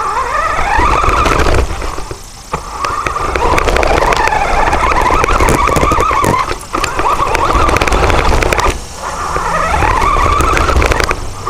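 Small RC rover's drive motor and gears whining, the pitch rising as it speeds up and sagging as it slows, over a rumble of tyres on the ground. It cuts out briefly three times, and each time the whine climbs again as it pulls away.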